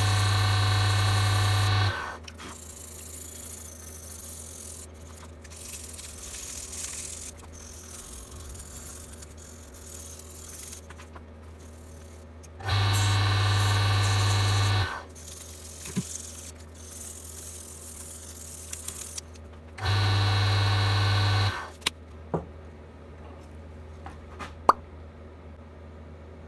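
A small wood lathe's motor runs with a steady hum in three stretches of about two seconds, at the start, around the middle and about three quarters through, each cutting off abruptly. Between them there is only a faint hum and low handling noise, with a few sharp clicks near the end.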